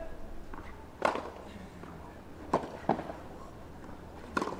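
Tennis ball struck by rackets in a rally: sharp pops about a second and a half apart, one followed closely by a softer knock.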